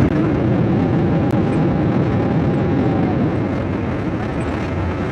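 Inside the cabin of a Boeing 777-200 rolling along the runway after landing: a steady, loud rumble of engines and wheels that slowly eases as the airliner slows.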